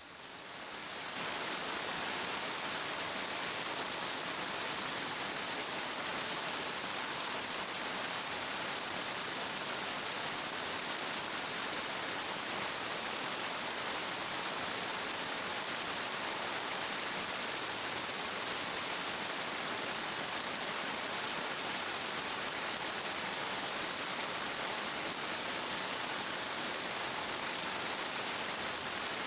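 Steady, even rushing hiss with no breaks, of the kind heavy rain makes; it rises to full level within the first second.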